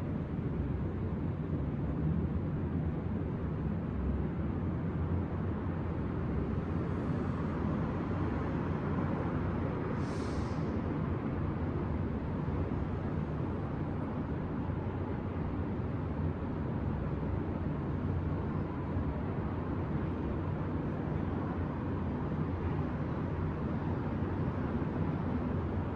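City ambience: a steady low rumble of street traffic, with a brief hiss about ten seconds in.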